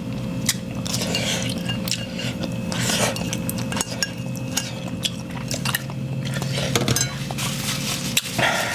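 Someone eating instant ramen: a utensil clinking against the bowl several times, with biting and chewing between, over a steady low hum.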